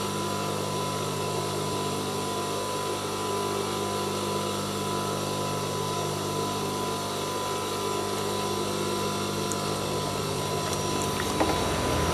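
Steady electric hum of an industrial sewing machine's motor running idle, with one light click near the end.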